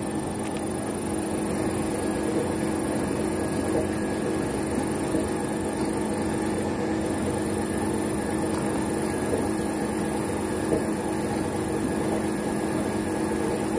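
Electric irrigation pump motor running with a steady hum: several constant tones over an even noise.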